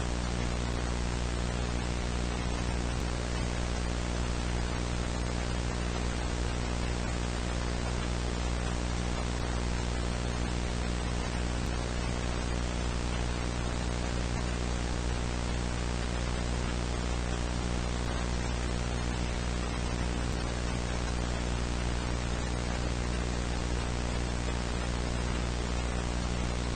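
Steady broadcast static: an even hiss with a low buzzing hum underneath, unchanging throughout.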